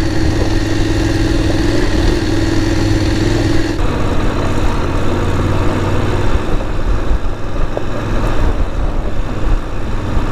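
Voge 900 DSX motorcycle's parallel-twin engine running steadily at low speed on a gravel track; the engine note changes abruptly about four seconds in.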